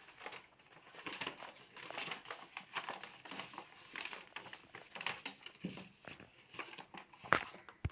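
Painting materials being handled at a desk: soft, irregular rustling and light taps and clicks, with one sharper click near the end.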